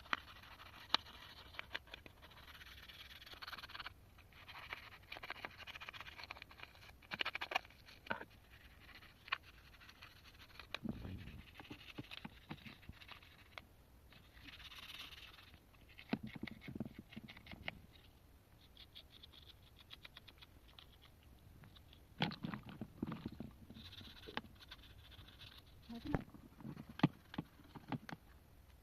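Small, irregular clicks, taps and scrapes of hands and small tools handling the plastic parts of a toy phone under repair, with a few soft thuds.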